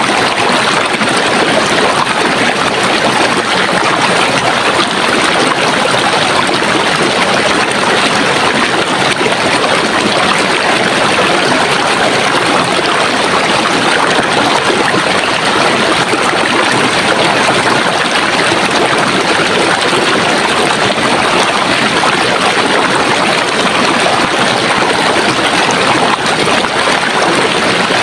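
Running water of a stream, a steady, unbroken rushing and trickling.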